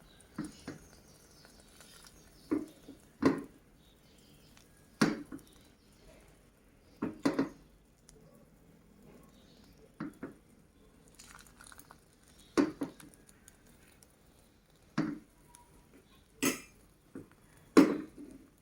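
Utensils knocking and clinking against dishes in short, irregular taps, often a second or two apart and sometimes in quick pairs.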